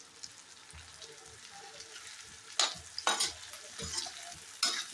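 Taro root pieces frying in oil and masala in a kadhai, a low steady sizzle, with a metal slotted spoon scraping and stirring against the pan three times in the second half.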